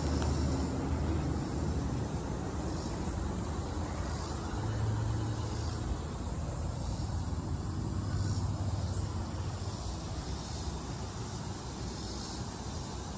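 Cummins ISB diesel engine of an International MV dump truck idling steadily, a low even hum.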